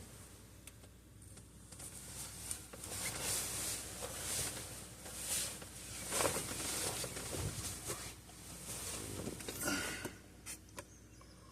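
Phone handling noise: irregular rustling, brushing and faint clicks as the phone is moved about and turned around.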